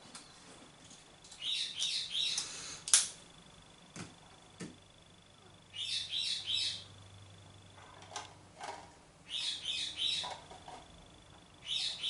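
A small songbird repeating a short phrase of three or four quick high chirps about every four seconds, with a few lower calls in between. A sharp click about three seconds in is the loudest sound, and there are a couple of lighter taps.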